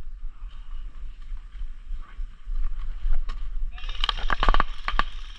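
A low, steady rumble of wind and movement noise. About four seconds in, a quick run of sharp cracks lasts about a second.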